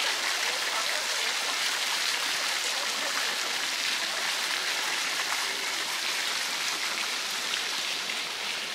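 Steady hiss of falling or running water, easing a little near the end.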